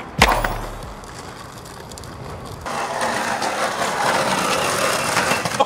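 A skateboard lands with a sharp clack about a quarter second in, then its wheels roll on pavement in a low rumble that fades out. After a cut near the middle, steady outdoor background noise follows.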